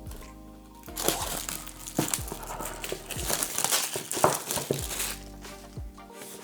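Packaging crinkling and rustling as a camera box is unpacked, from about a second in until about five seconds in, over soft background music.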